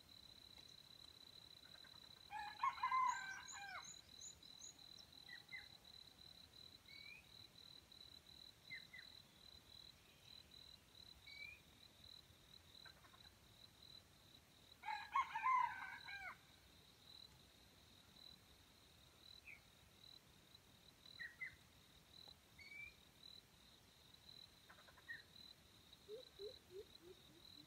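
Junglefowl rooster crowing twice, about twelve seconds apart, each crow short and clipped. A steady high insect drone and faint scattered bird chirps run underneath, and near the end comes a run of short low calls falling in pitch.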